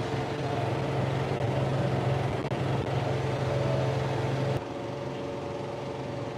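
A John Deere 4075R compact tractor's diesel engine runs steadily under load while driving a 10-foot flex-wing rotary mower through grass. A little over halfway through, the sound abruptly drops and changes character.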